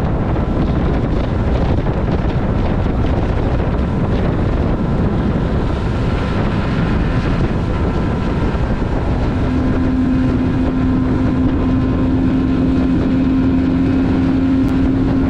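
A Mercury outboard motor runs a small fishing boat at speed, with heavy wind rushing over the microphone. A steady low hum comes in about two-thirds of the way through and holds.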